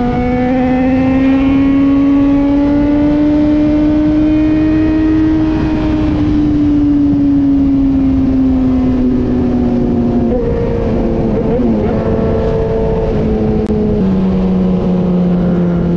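Motorcycle engine running at cruising speed, its pitch slowly rising and then easing off, with the note stepping down about ten seconds in and again near the end. Heavy wind rush on the microphone runs underneath.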